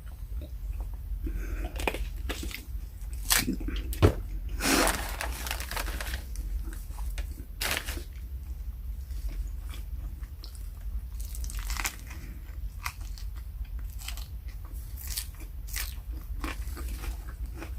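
Close-up eating sounds: biting into and chewing a Subway turkey sub with vegetables, crunching in short irregular bursts with scattered clicks. There is a longer burst about five seconds in and a steady low hum underneath.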